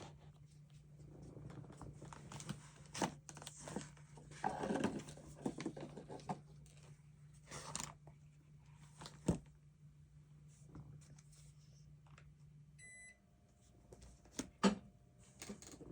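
Planner and stationery being handled on a desk: scattered rustles, taps and clicks. About thirteen seconds in there is a short electronic beep, and a steady low hum stops at the same moment.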